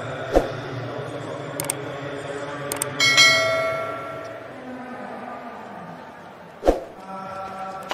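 Subscribe-button sound effect: a few quick clicks, then a bright bell ding about three seconds in that rings out for about a second. Two short thumps, one just after the start and one near the end, over a steady background.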